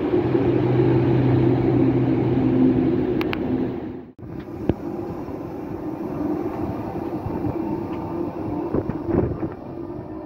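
Freight wagons rolling past on the rails with a steady hum, cut off abruptly about four seconds in. Then a quieter double-deck electric suburban train moving slowly alongside the platform, with scattered clicks and knocks of wheels on the track.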